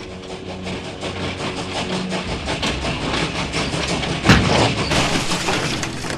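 Train running along rails with a rhythmic clickety-clack of wheels over track joints. A sharper, louder bang comes about four seconds in.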